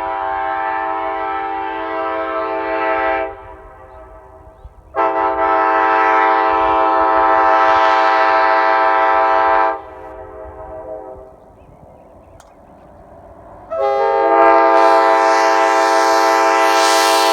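Nathan Airchime K5LAR45 five-chime locomotive air horn, a 1980s wide-font casting, sounding a steady chord in three blasts: one cutting off about three seconds in, a long blast of about five seconds, and another starting near the end.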